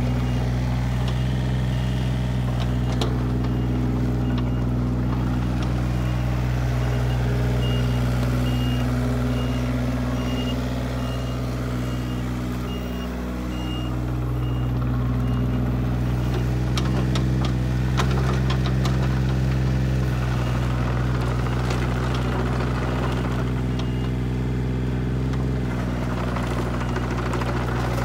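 Komatsu PC35MR mini excavator's diesel engine running steadily while the machine swings and works its hydraulics, easing off briefly about halfway. A high alarm beeps evenly through most of it, and a few sharp clicks come about two-thirds of the way through.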